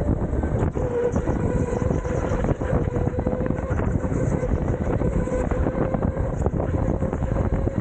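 Onboard sound of a rental go-kart driven at speed: a steady motor whine over rumbling tyres and chassis rattle, with wind buffeting the microphone.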